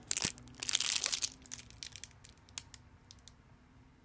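Clear plastic candy wrapper crinkling in a child's hands: a dense flurry of crackles for about the first second and a half, then scattered lighter crackles.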